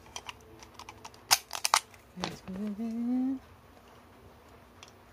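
Plastic toy food pieces and spoon clicking and tapping in a quick cluster as they are handled, followed by a short rising hummed voice sound of about a second.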